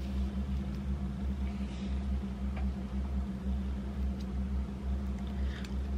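A steady low hum with a slight pulse, and a couple of faint clicks from metal knitting needles being worked.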